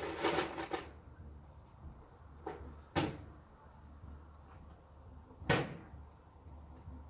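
A drag on a cigarette, a breathy, crackling inhale that stops under a second in, then three short sharp clicks, two close together a few seconds in and one more near the end.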